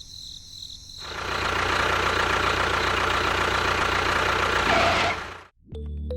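A small motor running steadily with a rattling, noisy sound and a faint whine, starting about a second in and cutting off abruptly near the end; music begins just after.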